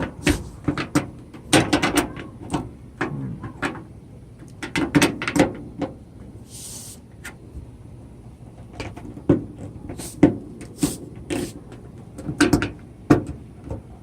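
Plastic replacement dryer door handle knocking and clicking against the dryer door in clusters as it is pushed repeatedly to snap its clips in, without seating. A brief hiss about seven seconds in.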